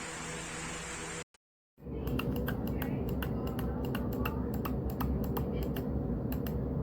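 Keys or buttons being pressed on computer peripherals: a run of sharp, irregular clicks, roughly four a second, over a low hum. Before it a steady hiss cuts off about a second in.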